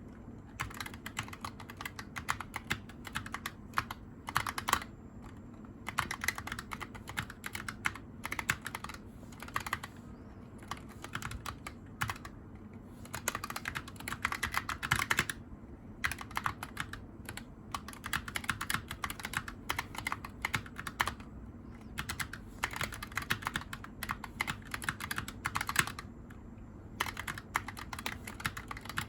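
Typing on a Razer Huntsman Tournament Edition keyboard with linear optical switches: quick runs of key presses broken by short pauses.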